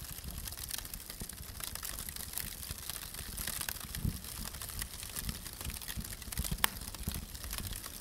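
Wood fire crackling: a steady hiss with many small pops and snaps, and one sharper pop late on.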